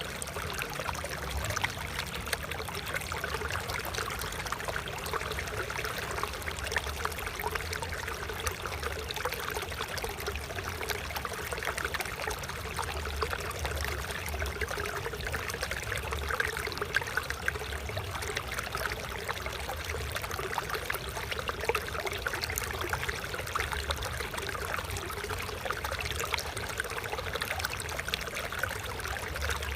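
Flowing water babbling and trickling steadily, like a small stream over stones.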